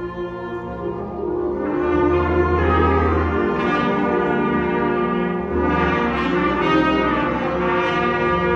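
Student concert band playing a piece, brass and woodwinds holding long chords that swell louder about two seconds in.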